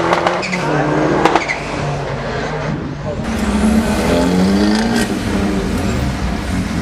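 Turbocharged race car engine running hard, with a couple of sharp cracks in the first second and a half. Its pitch rises as the car accelerates around the middle.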